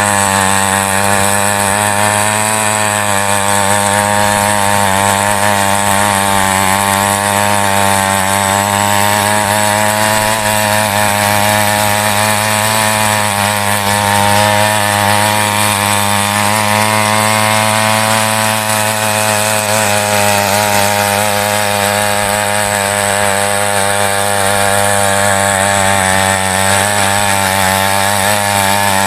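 Small petrol engine of a mini weeder running at steady high speed while its tines churn through dry soil, the pitch wavering slightly under load.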